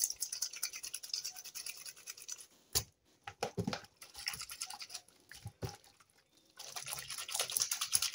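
A wet sock rubbed hard between two hands in soapy water: quick swishing, rubbing strokes in two spells, with a few knocks and splashes in the pause between.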